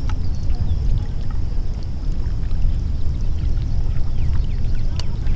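Low, steady rumble of wind buffeting the microphone, with a faint, steady high-pitched tone above it and one sharp click or splash about five seconds in.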